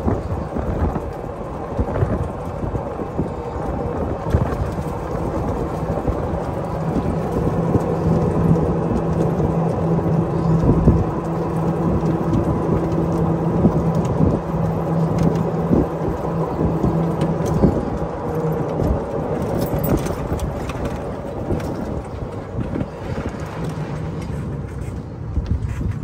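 Electric golf cart driving at its 25 mph top speed: continuous wind rumble on the microphone and road rumble with chassis rattles. A steady low hum runs through the middle, and the noise eases off near the end as the cart slows.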